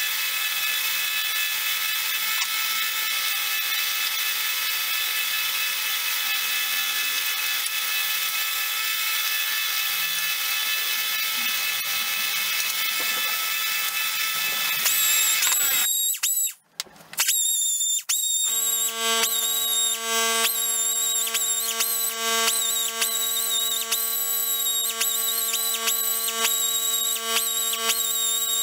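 Delta belt sander running steadily as a metal quoin key is held against the belt. About sixteen seconds in the sound breaks off, and a different, higher-whining motor takes over: a small power tool spinning a buffing wheel against the quoin key to polish it, its tone dipping briefly every second or so.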